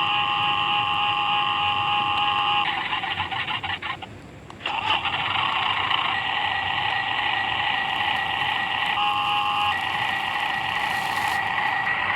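RC model excavator's electric motors and gears whining with several steady high tones. The whine dies away about four seconds in, stops briefly, then starts again rougher and hissier before the tones settle back.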